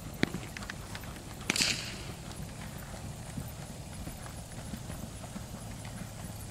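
Hoofbeats of a ridden horse at a fast gait on grass, a quick, even rhythm of low thuds. A sharp knock comes just after the start, and a short burst of hissing noise about a second and a half in.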